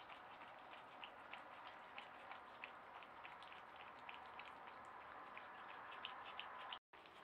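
Faint, irregular smacking clicks, several a second, of a Virginia opossum chewing a tomato, over a steady hiss. The sound drops out for an instant near the end.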